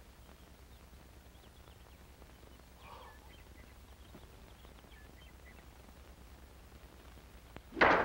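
Faint, scattered bird chirps over a low steady soundtrack hum. Near the end comes a sudden loud burst of noise lasting about a third of a second.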